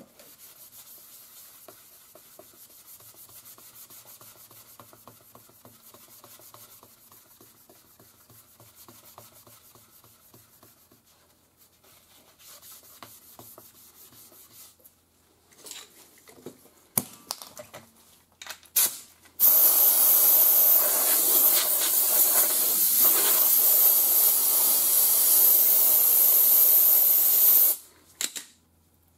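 A rag rubbing on the inner rim of an alloy wheel, a faint wiping as the spot for a stick-on balance weight is cleaned. About two-thirds of the way in, a loud steady spray hiss starts, runs for about eight seconds, then cuts off.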